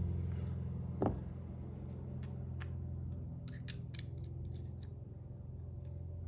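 Several small sharp metal clicks as fidget-spinner buttons are taken off and fitted onto the spinner's bearing, over a steady low drone in the background.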